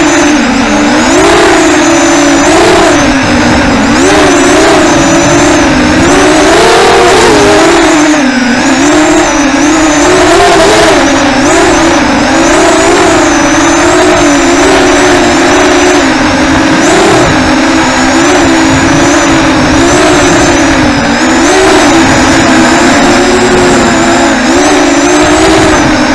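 Brushless motors and propellers of a 3S FPV racing quadcopter, picked up by its onboard camera: a loud, steady buzzing whine whose pitch wavers up and down constantly as the throttle changes.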